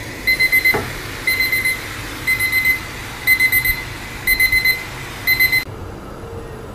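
Electronic alarm clock beeping: quick groups of high-pitched pips repeating about once a second, cutting off suddenly near the end.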